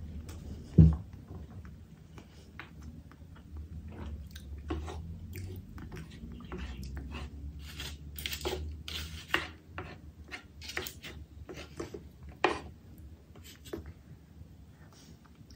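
Close-miked eating: a person chewing and crunching food, with many short crisp crunches that come thickest in the middle and again a few seconds before the end. A low thump about a second in is the loudest sound.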